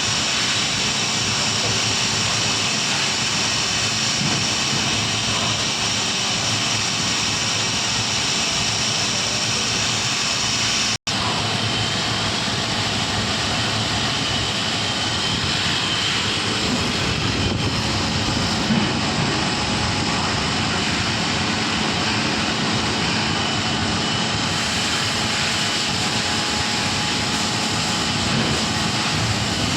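Steady, loud rushing noise of industrial machinery running continuously, with a brief dropout about eleven seconds in.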